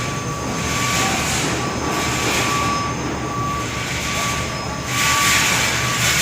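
Steady mechanical roar with a constant high whine, and a hiss that swells and fades every second or two.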